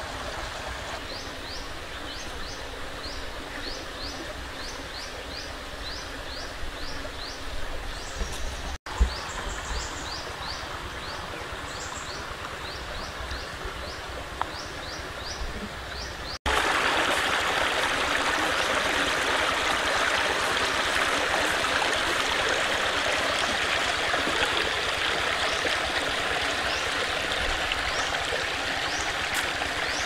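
Water running over rocks in a shallow stream, a steady rushing that steps up sharply to a louder, fuller flow just past halfway. Over the first half, short high chirps repeat about twice a second.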